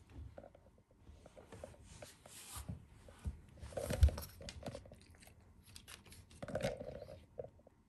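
A senior Pekingese chewing and crunching a dried treat, with irregular wet mouth clicks and tearing bites. A louder thump comes about four seconds in.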